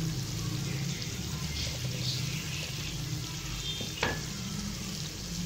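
Shredded beef sizzling in hot oil in a steel pot over a high flame, with one sharp knock about four seconds in as the slotted spatula goes into the pot.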